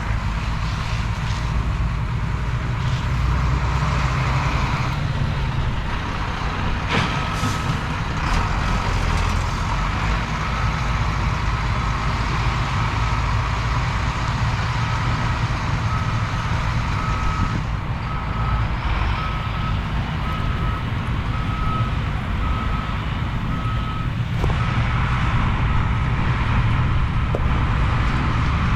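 A truck's backup alarm beeping roughly once a second over a steady low engine rumble; the beeping starts about a quarter of the way in and stops a few seconds before the end.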